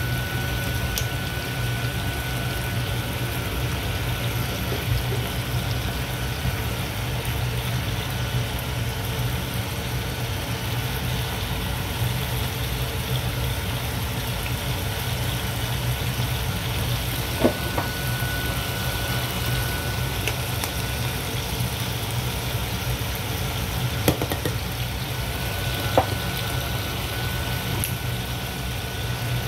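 Sliced onions and peppers frying gently in oil in a nonstick pan: a steady sizzle over a steady low hum, with a few light knocks in the second half.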